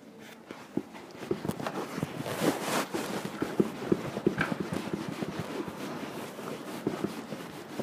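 Cloth rag briskly buffing wax polish on a horsehide leather boot: quick rubbing strokes heard as a rapid run of soft knocks and swishes, about three or four a second, starting about a second in.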